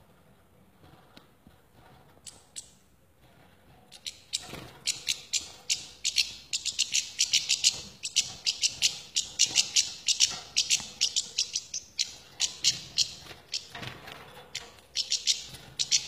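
European goldfinch giving a fast run of sharp, high chattering calls, several a second, starting about four seconds in with a couple of short breaks.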